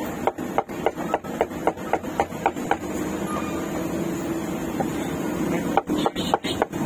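Cleaver chopping meat on a wooden block in quick regular strokes, about four a second. The chopping stops for a few seconds midway and starts again, faster, near the end, over a steady low hum.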